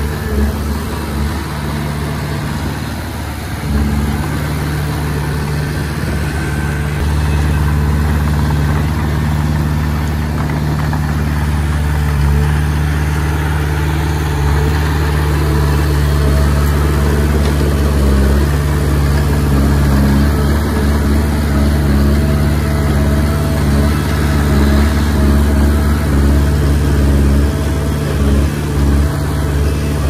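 Bulldozer's diesel engine running steadily at working revs. It eases off briefly about two seconds in and picks up again at about four seconds.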